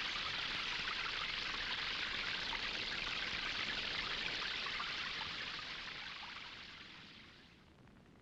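Water running and splashing in a steady hiss, fading out over the last few seconds.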